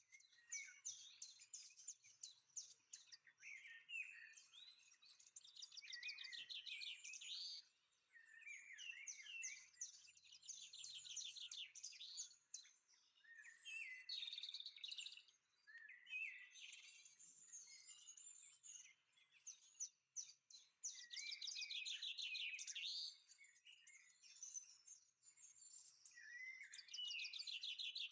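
Faint songbird song: varied chirps and fast trilled runs of high notes, with short pauses between phrases.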